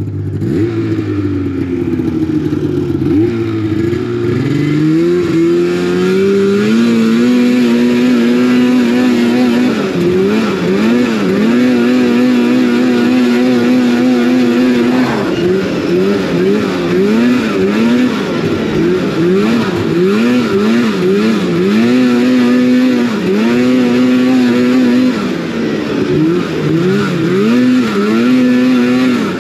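Polaris RMK snowmobile's two-stroke engine running on a test ride. Its pitch climbs over the first several seconds to a steady high note, then keeps dropping and climbing back again every second or two, with steady stretches in between.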